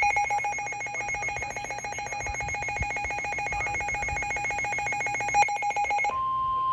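An electronic alert tone trilling rapidly, like a ringing phone, gives way about six seconds in to a single steady tone. The steady tone is the weather radio's 1050 Hz warning alarm, which comes before a severe thunderstorm warning.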